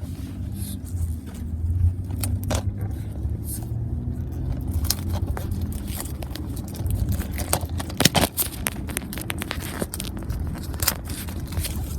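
Plastic shrink-wrap being torn and peeled off a Blu-ray case's cardboard slipcover: irregular crinkling crackles and scrapes, the sharpest about eight seconds in, over a steady low hum.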